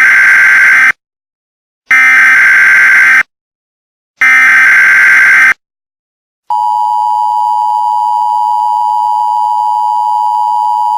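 Emergency Alert System header: three short bursts of digital data tones about a second apart, then the steady two-tone EAS attention signal starts about six and a half seconds in.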